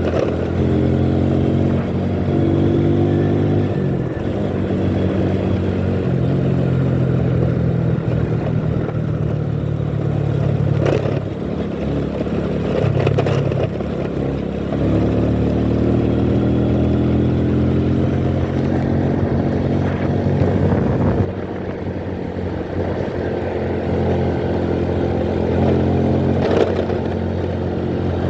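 Vehicle engine running on the move, its pitch stepping up and down and rising in slow glides as it speeds up and changes gear, with a few brief knocks.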